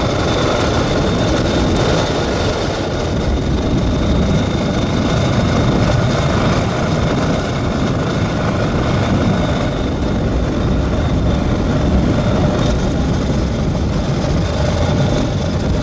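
Motorcycle under way on a dirt road: engine running mixed with wind and road noise, a loud, steady rumble.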